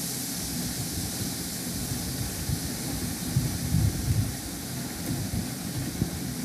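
Steady background noise: a low, uneven rumble with a hiss over it, a little louder about three to four seconds in.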